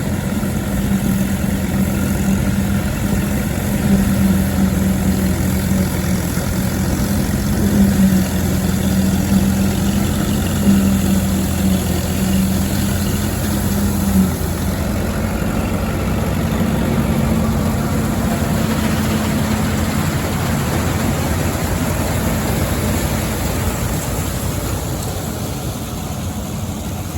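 Allis-Chalmers WD45 tractor engine running steadily, driving an All-Crop 72 pull-type combine in wheat. The engine note shifts slightly about halfway through.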